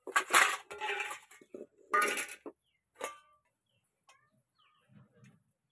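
Stainless steel bowls clinking and knocking, with short metallic rings: a couple of strikes near the start, another about two seconds in and a last one about three seconds in, then only faint scrapes.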